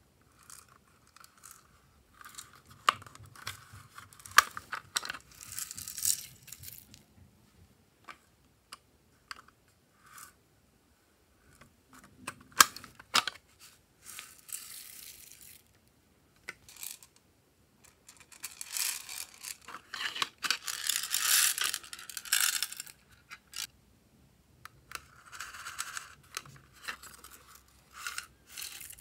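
Hard plastic toy cases clicking and being handled, and sequins, glitter and small beads being shaken out of them onto slime in glass trays, in several rattling pours with quiet gaps between. The longest pour runs from about 18 to 23 seconds in.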